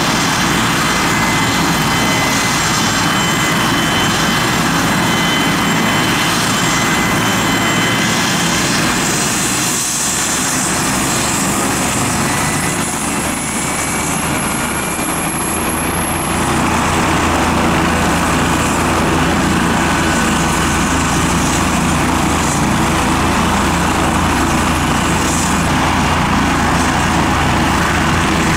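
Leonardo AW169 twin-turbine helicopter running on the ground with its rotors turning before takeoff: a steady high turbine whine over the rotor noise. The low rotor beat grows stronger a little past halfway.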